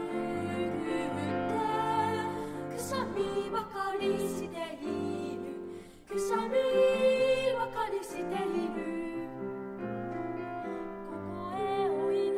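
Children's choir singing with piano accompaniment, with a brief drop in loudness about six seconds in.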